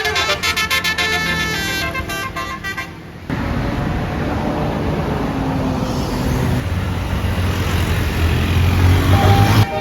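A Basuri telolet air horn plays a quick multi-note tune for about three seconds and cuts off suddenly. A bus's engine and road rumble follow, growing louder near the end as it passes.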